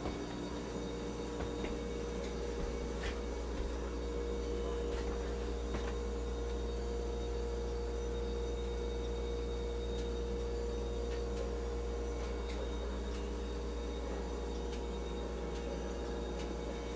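Steady mechanical hum with one clear pitch and a low rumble beneath it, with a few faint clicks.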